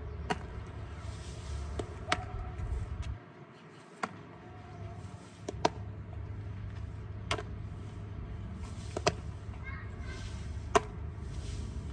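A baseball being fielded: a sharp smack every second and a half or so as the ball hits a leather fielding glove and bounces on the asphalt, over a steady low rumble.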